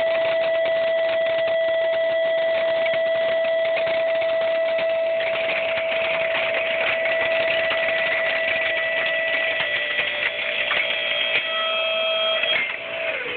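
A motor-driven machine running steadily with a high, even whine over a rattly mechanical noise. Near the end it is switched off and the whine falls in pitch as it winds down.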